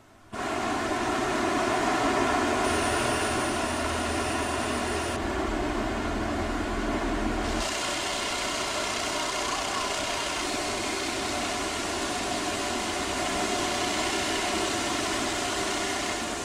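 Rice mill machinery running: a steady mechanical hum over a dense whirring noise. It shifts abruptly a few times, gaining a faint high whine about 3 seconds in and losing it about 5 seconds in, with another change near 8 seconds.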